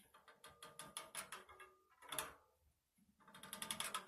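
Bee smoker being worked by hand after lighting: faint runs of rapid clicking and rattling, twice, with a short rush of air about halfway through.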